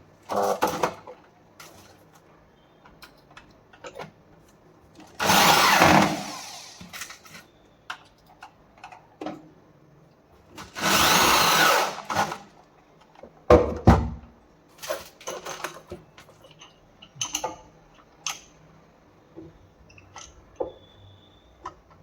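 A power drill runs in two short bursts, about five and about eleven seconds in, driving screws into wood to fix a gas-strut mounting bracket. Scattered clicks and knocks of handling the parts fall in between and after, with one heavier knock near the middle.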